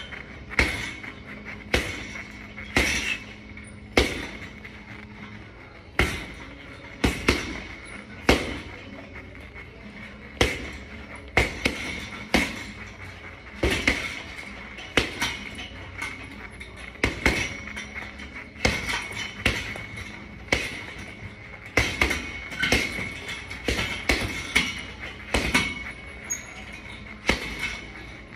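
Gloved punches landing on a large leather Ringside heavy bag hung on chains: sharp thuds about one or two a second, often in quick combinations of two or three with short pauses between.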